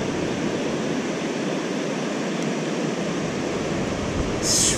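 Steady rushing water noise from the river and falling rain, with a brief high hiss near the end.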